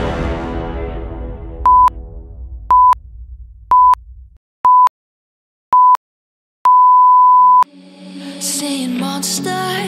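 Workout interval timer counting down the rest period: five short electronic beeps at one pitch about a second apart, then one longer beep marking the end of the rest. Background music fades out in the first few seconds, and new music comes in near the end.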